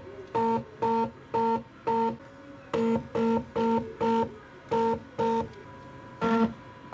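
NEMA 17 stepper motor driving the CNC's belt axis back and forth in short moves. Each move gives a short whine of the same pitch, about two a second, with a few longer pauses.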